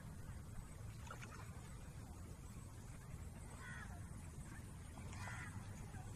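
Water sloshing faintly as a cast net is hauled in and gathered by hand in waist-deep pond water, over a steady low rumble. A few faint short chirps come about a third of the way in and again near the end.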